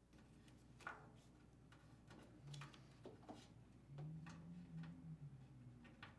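Faint, scattered clicks and taps of plastic parts being handled as the lid lock assembly's retaining tabs are pinched with needle-nose pliers, over near silence, with a faint low hum twice around the middle.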